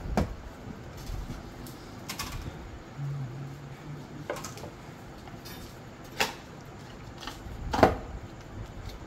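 Cardboard smartphone box and its accessories being handled and set down on a counter: a handful of separate knocks and taps, the loudest near the end.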